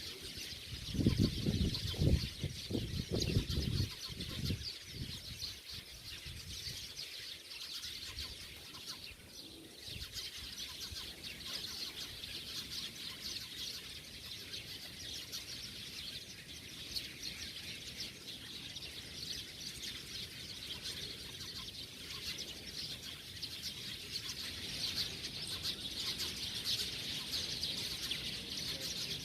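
Dense, unbroken chirping of a large flock of small birds, many calls overlapping into a constant chatter. A low rumble comes through for a few seconds near the start.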